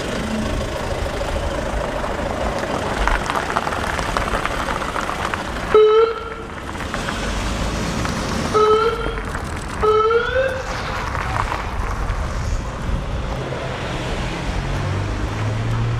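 Three short vehicle horn toots, the first about six seconds in and two more close together a few seconds later, the last rising slightly in pitch, over steady street traffic noise.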